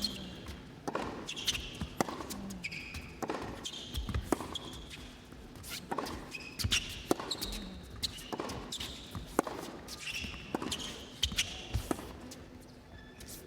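Tennis rally: the ball is struck by racket strings and bounces on the court, with sharp hits coming about every half second to a second, mixed with short high squeaks of players' shoes on the court.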